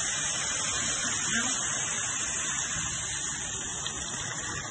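Chicken stew sizzling and simmering in a hot pot as it browns, a steady hiss.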